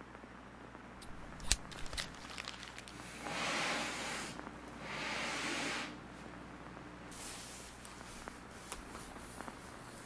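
Handling noise from a nylon backpack and its straps. Two sharp clicks of buckle or strap hardware come about a second and a half and two seconds in, then two rasping swishes of fabric or webbing being pulled, each about a second long, followed by a few faint ticks.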